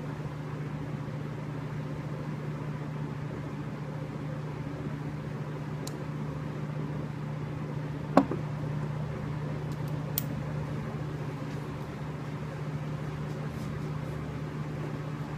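A steady low mechanical hum, with a single sharp knock about eight seconds in and a lighter click about two seconds later.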